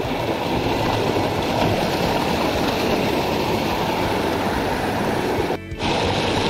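Mountain stream rushing steadily and loudly, a close, even roar of water that drops away briefly about five and a half seconds in.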